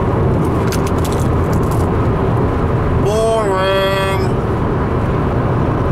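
Steady road and engine noise inside a Ford car's cabin at motorway speed. About three seconds in, a man's voice gives one wordless, sliding held note for about a second.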